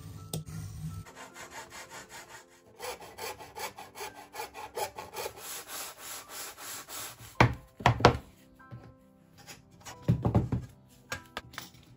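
Utility knife blade drawn again and again along a steel ruler through stiff board, a run of quick scraping strokes as the cut is scored deeper. Then a few loud knocks as the cut strips are handled on the cutting mat.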